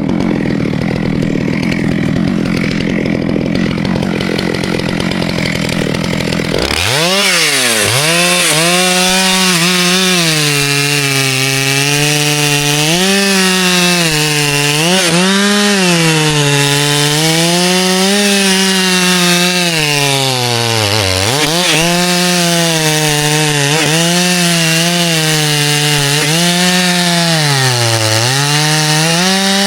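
Chainsaw cutting ash wood. About seven seconds in, a nearby saw comes in louder and its engine pitch dips and rises again and again as the chain bites under load. Before that there is a steadier, less distinct engine noise.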